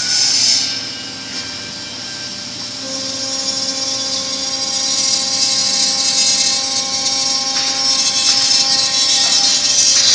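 CNC router's horizontal drilling spindle running at high speed and boring holes into the edge of a wood panel, a steady whine over a hiss of cutting and dust extraction. Further steady tones join about three seconds in, and the sound grows louder toward the end.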